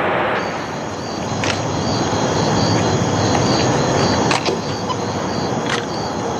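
Fire burning with a steady rushing noise and a few sharp crackles, crickets chirping behind it.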